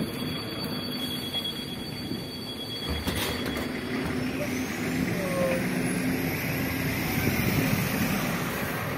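City bus running, with a steady engine hum. About three seconds in there is a click. From about four seconds in a high whine rises steadily in pitch as the bus gathers speed.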